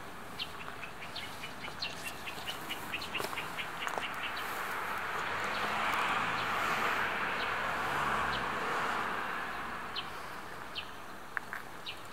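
A small bird gives a quick series of high chirps, about six a second, for the first few seconds. A broad rushing noise then swells and fades through the middle, and is the loudest sound. A few scattered chirps come near the end.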